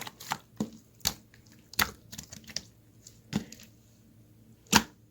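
A series of irregular short, crisp clicks and crunches, the loudest one near the end.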